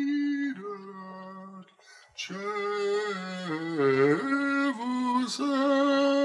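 Unaccompanied singing: a slow melody of long held notes, one of them wavering with vibrato about four seconds in.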